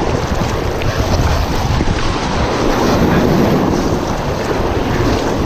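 Rushing whitewater rapids, a loud steady wash of water, with wind buffeting the microphone.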